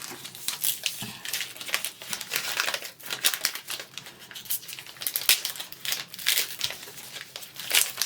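Chocolate bar packaging being unwrapped by hand, an irregular run of crinkling and rustling with small tearing sounds.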